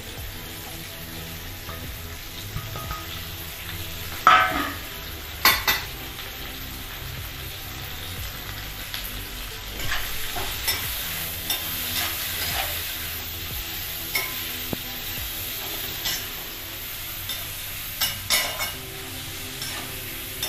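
Chopped vegetables (shredded cabbage) sizzling in hot oil in a wok on a high gas flame, stirred with a spatula. The spatula scrapes the pan, with a few sharp metal clinks, the loudest about four seconds in and again near the end.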